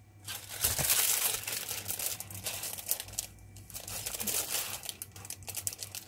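Plastic sleeve crinkling and rustling as a sheet of watercolour paper wrapped in it is handled, with a short lull about three seconds in.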